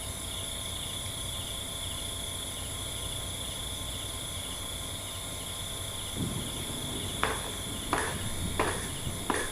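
Crickets chirping steadily in a continuous high trill. A handful of short knocks or scrapes come in the last few seconds.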